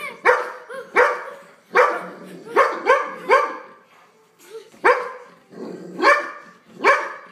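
Golden retriever barking in short, sharp barks, about ten of them, with a brief pause about four seconds in. It is barking at the zipper on a couch cushion.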